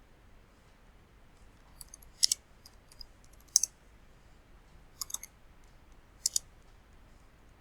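Sharp clicks at a computer: four loud single clicks spread a second or so apart, with a few fainter ticks between them.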